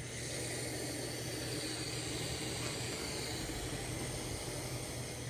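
Steady hiss of one long vape drag of about five seconds: air pulled through an Amigo Donner sub-ohm tank as its 0.5-ohm coil fires at 35 watts, with the airflow turned almost fully closed. It starts and stops abruptly.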